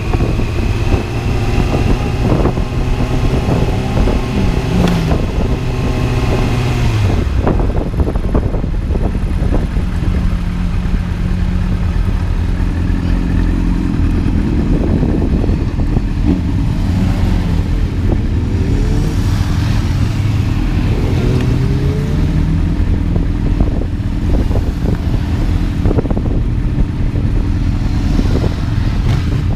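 A motor vehicle's engine running hard under a dense low rumble, its note falling about seven seconds in and climbing again with the throttle a few seconds later, then shifting up and down repeatedly.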